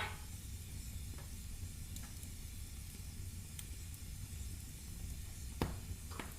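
Firewood burning in a fireplace: a steady low rumble of flames under a faint hiss, with scattered crackles and small pops. There is a pop right at the start, and a sharp crack about five and a half seconds in, followed by a smaller one just after.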